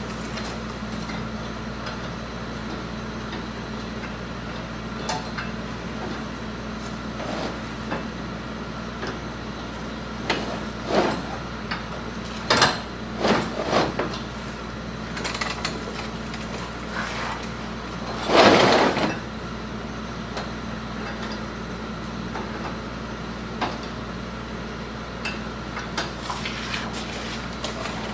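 Steady low mechanical hum, with scattered metal clanks and rattles from the New Holland manure spreader's steel apron chain and slats being handled. The clanks cluster in the middle, the loudest lasting about a second, about two thirds of the way in.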